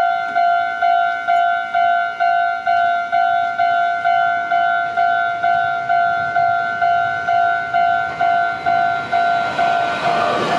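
Level crossing warning bell on the Meitetsu Tsushima Line ringing steadily, about two strikes a second. Near the end the rumble of an arriving train rises under it.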